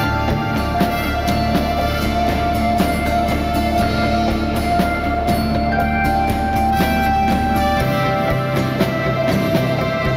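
Background music: sustained instrumental notes over a steady beat, with a low bass note that drops out about eight seconds in.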